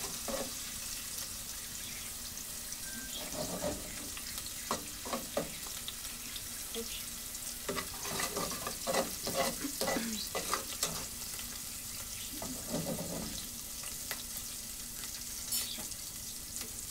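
Food sizzling in a little hot oil in an aluminium pot, with a spoon stirring it and now and then clicking and scraping against the pot.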